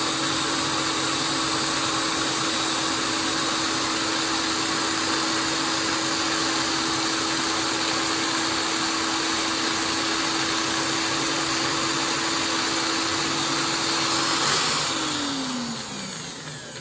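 Electric drill driving a homemade float lathe, running at a steady speed with a constant whine while 400-grit emery cloth smooths the spinning float body. Near the end it is switched off and winds down, its pitch falling away.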